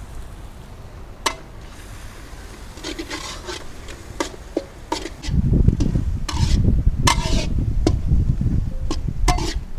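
Metal ladle scraping and stirring thick sea urchin masala in a black iron kadai, with scattered sharp clinks of the ladle against the pan. From about halfway a loud low rumble joins in.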